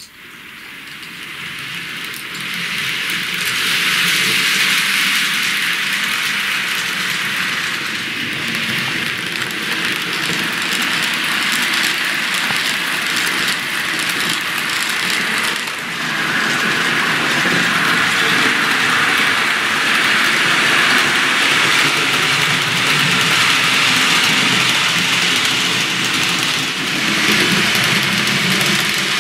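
TT-scale model train (an analog class 187 electric locomotive with freight wagons) running on the layout's track: a steady whirring rattle of the small motor and the wheels rolling over the rails, swelling over the first few seconds.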